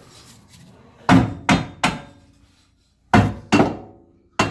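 A hammer striking metal six times in quick groups, each blow ringing briefly, knocking the rear differential bracket hardware into place under the car.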